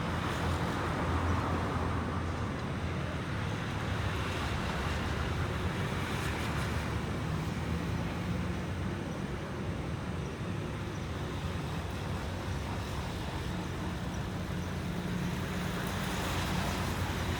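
Steady road traffic: engines and tyres of passing vehicles, with a low engine hum underneath.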